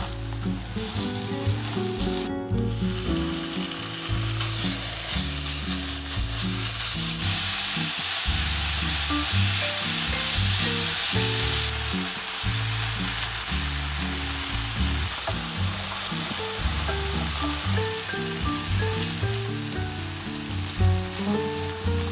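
Eggplant pieces, then ground meat, sizzling in oil in a nonstick frying pan as they are stirred. The crisp sizzle of the eggplant is the cue that it is done frying. Soft background music with low notes plays underneath.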